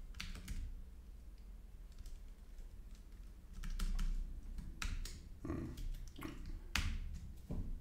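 Computer keyboard being typed on: scattered single keystrokes near the start, then a burst of several key presses in the second half.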